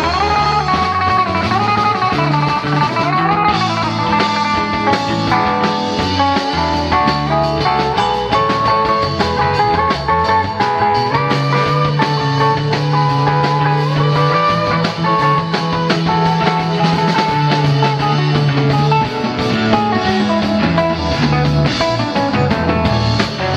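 Live rock band playing an instrumental jam: an electric guitar lead with bending notes over bass, drum kit and keyboards.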